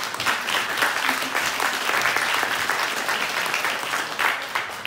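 Small audience applauding, the clapping swelling up at the start and thinning out near the end.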